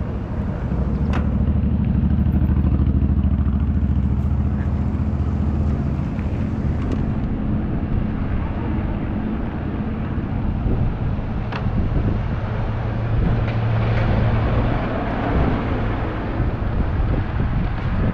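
A motor vehicle's engine running close by with a low hum, loudest over the first several seconds and again around the middle, over steady outdoor noise.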